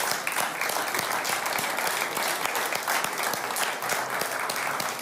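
Congregation applauding: many hands clapping steadily.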